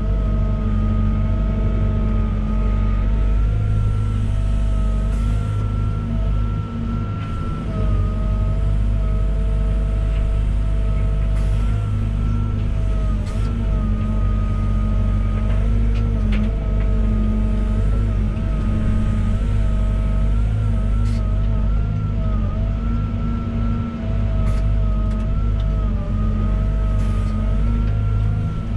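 Volvo EWR150E wheeled excavator's diesel engine and hydraulics running steadily under work, a deep rumble with a high whine that wavers slightly in pitch. A few faint clicks or knocks sound here and there.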